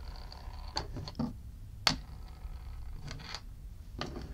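Small metal lighter parts being picked up and handled, giving about half a dozen short, light clicks and taps on the work surface, the sharpest about two seconds in.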